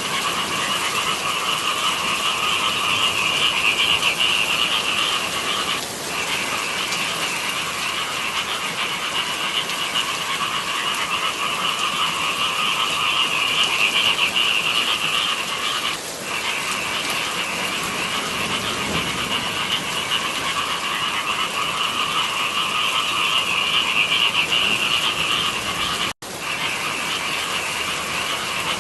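Dense chorus of many frogs calling in rice paddies, a continuous din in two pitch bands that swells and eases roughly every ten seconds. The sound cuts out for an instant near the end.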